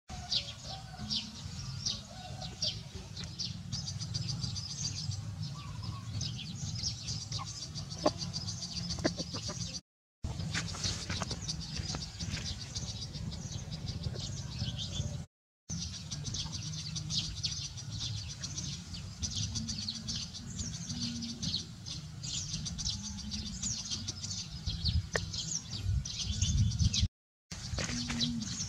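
Small birds chirping and twittering in many quick, high notes over a low steady rumble. The sound drops out briefly three times.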